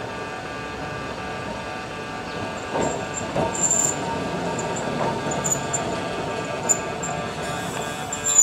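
Yonkaichi Asunarou Railway 260 series narrow-gauge electric train pulling out of a station: a steady whine of several tones, wheels knocking over the track a few times and brief high wheel squeals.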